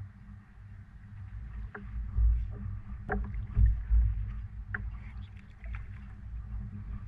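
Handling noise while a caught Spanish mackerel is unhooked and released: irregular knocks and clicks over a low rumble, with the loudest thumps between about two and four seconds in.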